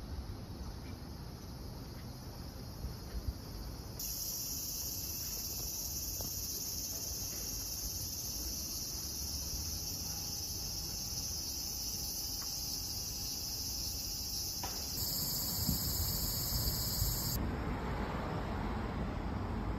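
Insects in the trees shrilling steadily and high-pitched, starting abruptly about four seconds in and changing in tone near the end, over a low background of distant traffic.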